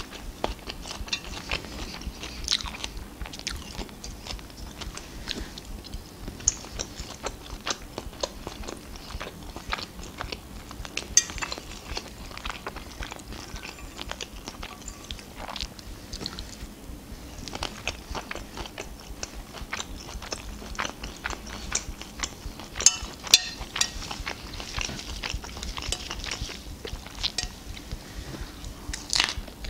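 Close-miked chewing and biting while eating mushroom salad on lettuce and pelmeni dumplings: irregular wet mouth clicks and soft crunches throughout, with a few sharper clicks standing out.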